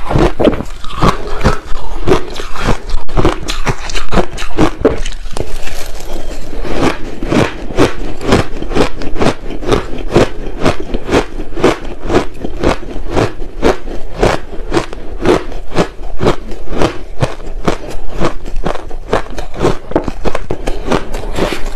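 Crushed ice being chewed: rapid, steady crunching, about three crunches a second without a break.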